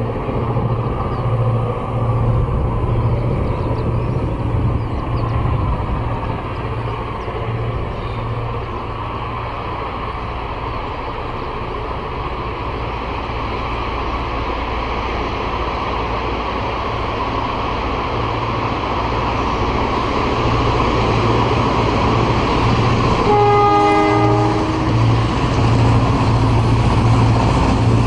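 Transnet Class 35-800 EMD diesel-electric locomotive approaching, its engine running with a low pulsing note that grows louder as it nears. About 23 seconds in it gives a short horn blast that steps down to a lower note.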